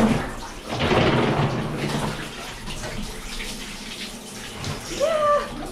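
Bathwater splashing and sloshing as a Labrador retriever is lowered into a full bathtub, loudest about a second in and then settling. Near the end the dog gives a short rising-and-falling whine.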